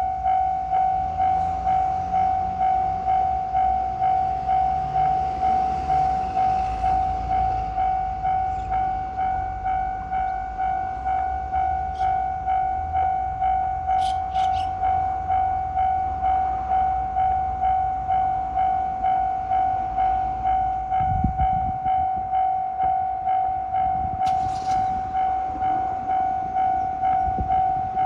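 Railway level-crossing warning bell clanging steadily on one ringing pitch, about two strikes a second. A low rumble runs under it for the first ten seconds or so, and a few sharp clicks and two dull thumps come later.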